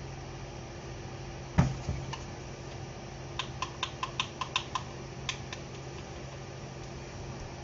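A single sharp knock, then a quick run of about eight light clicks over roughly a second and a half and one more click, over a steady low hum.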